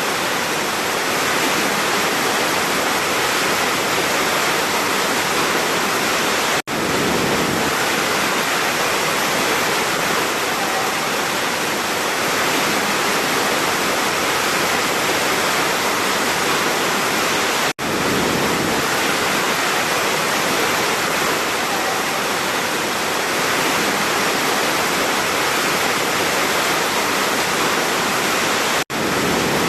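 Large waterfall rushing with a steady, loud roar of falling water, cut by three brief dropouts about eleven seconds apart.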